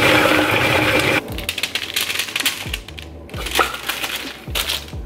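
Food processor motor running at full speed, grinding dates, cashews and cocoa into a sticky paste, and cutting off about a second in. Then knocks and scraping as the sticky mixture is tipped out of the plastic processor bowl.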